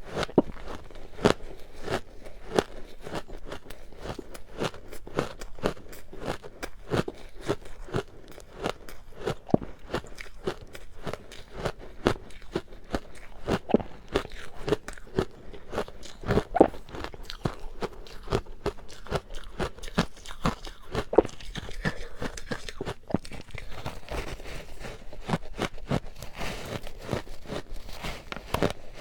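Close-miked chewing of matcha-powdered shaved or freezer ice: a dense run of sharp, irregular crunches, several a second.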